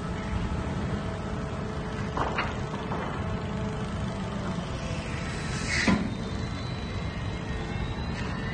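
Harbour crane's machinery running with a steady low rumble and a faint whine while hoisting a shipping container, with a couple of short metallic knocks about two and three seconds in and a louder short burst of noise near six seconds.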